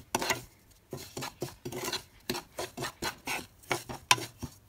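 Spatula scraping and stirring dry semolina (rava) as it roasts in a nonstick pan: a run of short, uneven scrapes, about three a second, with the loudest near the end.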